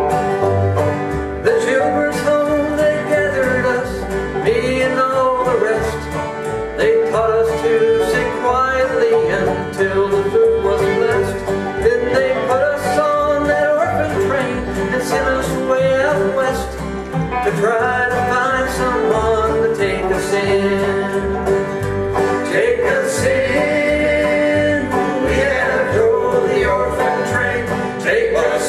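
Old-time string band playing an instrumental break in a slow ballad: a fiddle carries the melody over clawhammer banjo and guitar.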